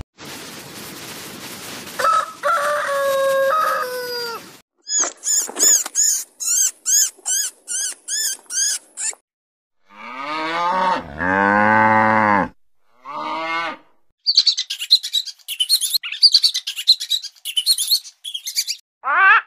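A string of different animal calls: a rooster crowing, then a run of short high chirps about two a second, a cow mooing about ten seconds in, and rapid high-pitched squeaks near the end.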